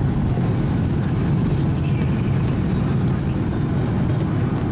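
Cabin noise of a Boeing 757-200 at takeoff, heard from a window seat over the wing: a steady, deep roar of the engines at reduced takeoff thrust and the rush of air as the jet lifts off and climbs.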